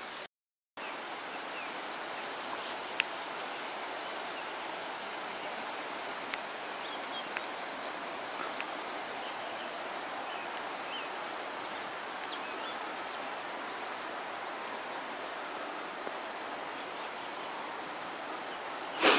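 Steady rushing outdoor ambience, an even noise with a few faint ticks and chirps over it. It cuts out for a moment near the start.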